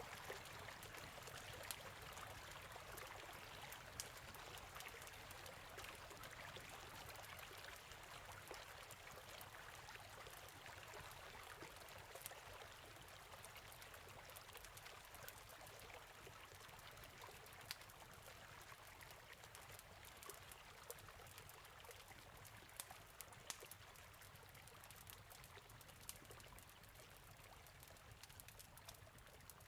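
Faint, steady trickle of running water, with sharp crackles and pops from a wood campfire scattered through it.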